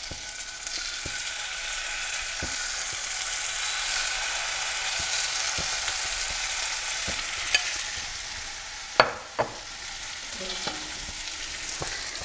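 Tandoori-marinated chicken pieces sizzling in hot oil in a non-stick frying pan. The sizzle grows louder over the first few seconds as more pieces go in, and a few sharp clicks of the tongs on the pan come later.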